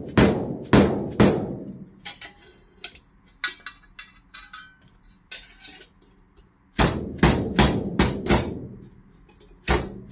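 A mallet strikes a chisel held against sheet metal clamped in a bench vise, forming a bend or groove in the metal. Each blow is a sharp metallic knock with a short ring. Four quick blows open it, then lighter taps and clinks, then a run of five heavy blows starting about seven seconds in, with another near the end.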